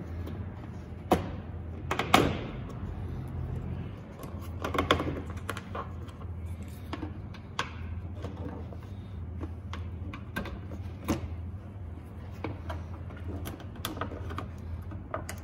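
Plastic push-pin clips being pried up one after another with a small flathead screwdriver from a plastic cover panel over the radiator support: irregular sharp clicks and pops with light scraping, the loudest about two seconds in. A low steady hum runs underneath.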